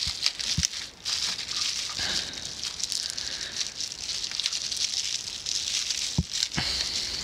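Plastic bubble wrap crinkling and rustling as it is handled and pulled open, with a couple of sharper clicks near the end.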